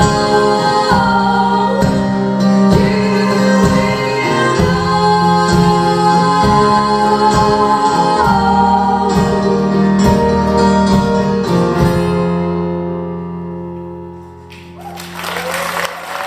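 Live singing over strummed guitar plays the song's closing bars; the last chord rings and fades away about twelve seconds in. Audience applause and whoops start near the end.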